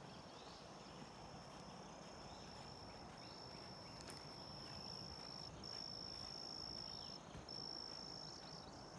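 A faint insect trills steadily at one high pitch in stretches of one to two seconds with short breaks, louder from about three seconds in, with faint short bird chirps behind it.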